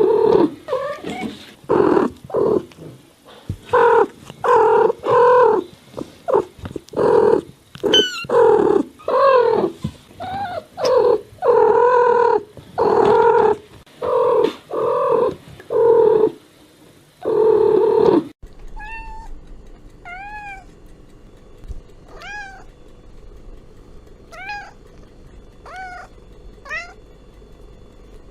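A cat meowing over and over in loud, quick calls. About two-thirds of the way through it cuts to high, thin kitten mews, one every second or so.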